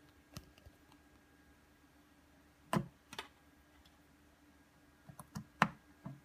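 Plastic clicks and knocks from handling a Floureon jump starter power bank as its charging plug is pulled and its on/off switch is pressed with a pen tip. Several soft clicks, with a louder knock about three seconds in and the loudest near the end.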